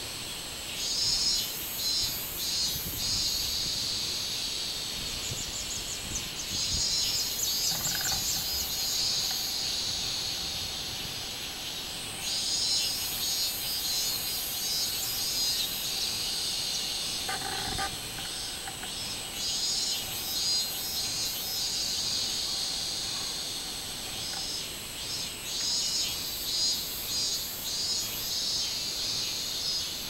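Minmin-zemi (robust cicadas, Hyalessa maculaticollis) singing: bouts of rapid pulsing phrases a few seconds long come and go over a steady high-pitched cicada drone.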